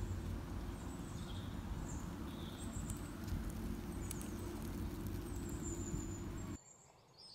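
Outdoor park ambience: a steady low rumble with a few faint high bird chirps. It cuts off abruptly to silence near the end.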